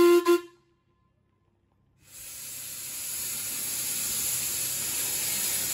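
A steam whistle's loud, steady note cuts off half a second in. From about two seconds in, a small Hunslet quarry tank engine's cylinder drain cocks blow off steam in a loud hiss that keeps growing louder.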